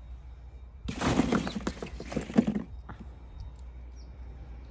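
A burst of crackling, crunching noise made of many small clicks, starting about a second in and lasting about two seconds, followed by a single short click.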